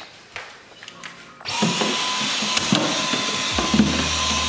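Dyson cordless stick vacuum switched on about a second and a half in and running with a steady high whine as it cleans out a freezer drawer. Before it starts there are a few light handling clicks.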